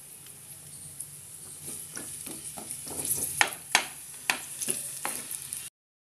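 Chopped onions sizzling in hot oil and ghee in a non-stick kadai while a wooden spatula stirs them, knocking and scraping against the pan in a quick run of strokes, loudest a few seconds in. The sound cuts off suddenly near the end.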